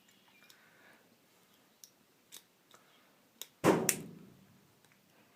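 A rake lock pick being worked in a small Master Lock padlock, making a few faint ticks. About three and a half seconds in comes a loud metallic clack, quickly doubled, with a short ring, as the padlock opens and its shackle springs up.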